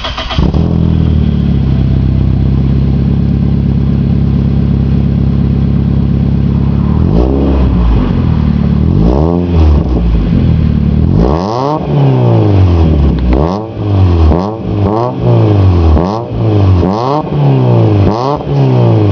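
Toyota 4A-FE 1.6-litre inline-four catching just after being started, then idling steadily for about seven seconds. After that the throttle is blipped again and again, the revs rising and falling about once a second, heard through the exhaust.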